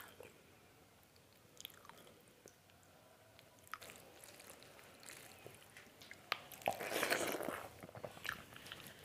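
Close-miked eating sounds: fingers squishing and mixing rice with mutton curry gravy, with wet clicks and chewing. The sounds are faint and scattered at first and grow louder and denser about seven seconds in.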